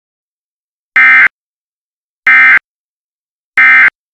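Emergency Alert System end-of-message (EOM) data tones: three short, loud bursts of digital SAME data about 1.3 seconds apart, signalling that the alert message is over.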